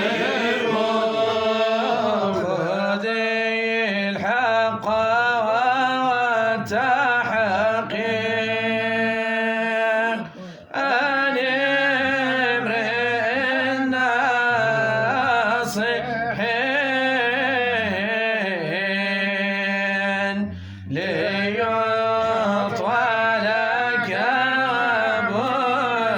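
A man's voice chanting an Arabic Sufi devotional poem in long, ornamented melodic lines over a steady low drone, with two brief pauses for breath, about ten and twenty-one seconds in.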